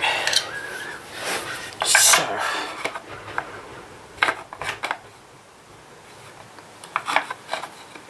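Handling noises: scattered clicks, clinks and scrapes, loudest about two seconds in, as a plastic surface-mount socket back box is picked up and held against the wall.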